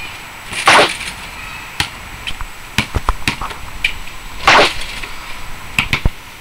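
A basketball bouncing in irregular sharp knocks and thuds, with two louder short hissing bursts, about a second in and again around four and a half seconds.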